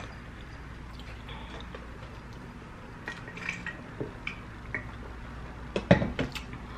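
Soft, wet mouth sounds of someone chewing loaded fries: scattered small smacks and clicks, then a louder cluster of smacks about six seconds in.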